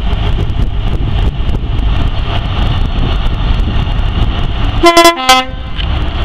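Class 43 HST power car's diesel engine running, then its two-tone horn sounds about five seconds in: a short higher note followed at once by a short lower one.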